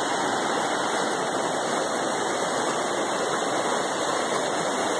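Steady rushing of river water, an even noise without breaks.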